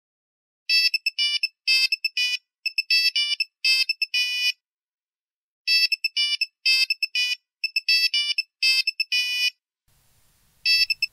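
Mobile phone ringtone: a tune of short electronic beeps, played in two phrases of about four seconds each, with one more beep near the end.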